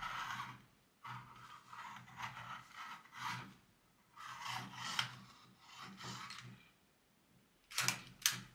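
Hand-crank pencil sharpener grinding a pencil in a series of short rasping strokes, roughly one a second, then two brief sharper scrapes near the end.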